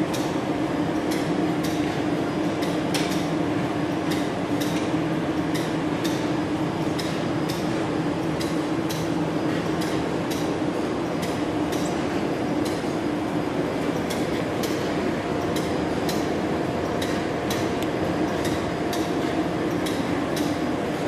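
Bobst PCR930 carton folder-gluer running steadily: a continuous mechanical hum with regular sharp clicks about twice a second.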